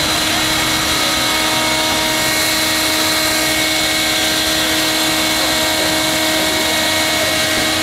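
Electric air blower running steadily with a constant hum and whine, filling a clear plastic water-walking ball.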